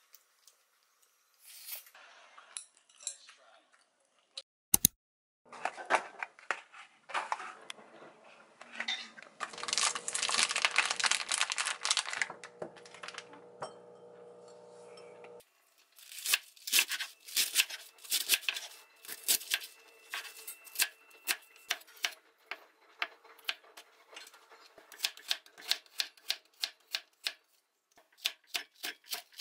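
A chef's knife chopping cabbage and green onion on a wooden cutting board: a steady run of sharp knocks, about three a second, through the second half. Before that come rustling and handling of a plastic bag and a bowl, with a low hum that cuts off suddenly about halfway through.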